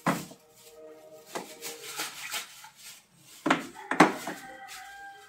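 Tin cans being set down on a pantry shelf, knocking against the shelf and each other in a string of sharp clunks, the loudest at the start and about four seconds in. Faint background music underneath.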